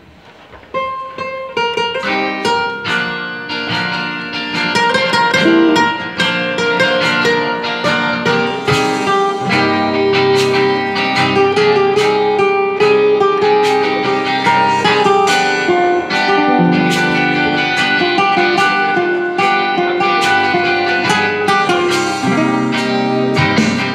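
Guitars playing a communion hymn, plucked and strummed, starting about a second in.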